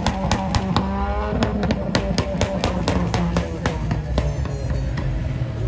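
Car engines running as cars pull away, under a rapid series of sharp cracks, about four a second, that stop a little after four seconds in; a brief rising note comes about a second in.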